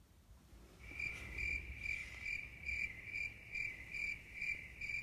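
Cricket chirping, a steady pulsing trill of about two and a half chirps a second that starts about a second in.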